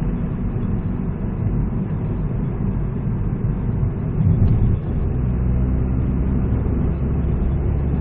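Peugeot 207cc's engine and road noise heard from inside the cabin while driving, a low hum that settles into a steadier drone about five seconds in.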